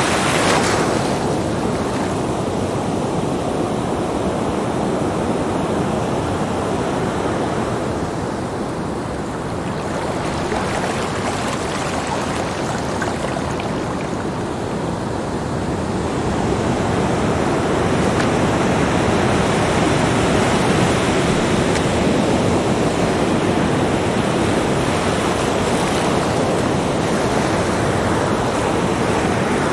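Small ocean waves breaking and washing up a sandy shore: a steady surf wash that grows a little louder past the halfway point.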